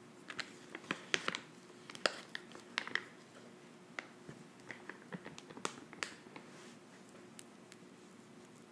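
Gel face mask being worked with an application brush close to the microphone: scattered wet, sticky clicks and taps, thickest over the first six seconds and thinning out toward the end.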